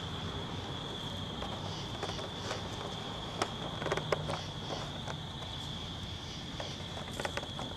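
Night insects trilling in a steady, continuous high-pitched chorus, with scattered short crackles and rustles, clustered about halfway through and again near the end.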